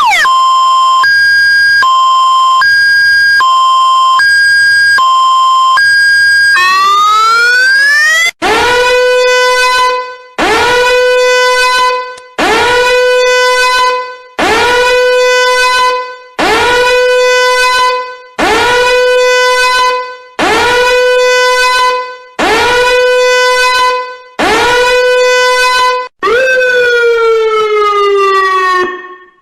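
Electronic emergency-vehicle siren sounding loudly. For about six seconds it is a hi-lo two-tone, switching pitch about once a second. It then rises in a wail and becomes a run of nine short rises, each holding a steady tone for about two seconds before cutting off. It ends with a falling tone.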